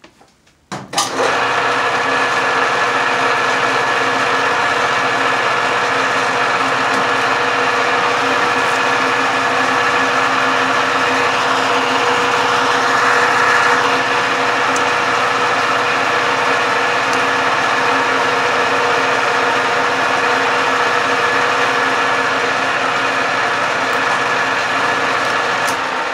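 Metal lathe starting about a second in and running steadily while it takes a cleanup cut on a metal workpiece, its motor and gearing giving a steady whine with several held tones. The sound begins to die away right at the end as the lathe is stopped.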